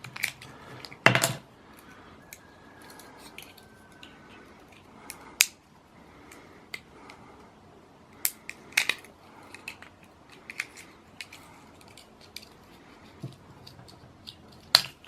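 Irregular small clicks and scrapes of metal on plastic as a Victorinox Swiss Army knife's plastic scales are pried off with the blade of another pocketknife; the sharpest click comes about a second in.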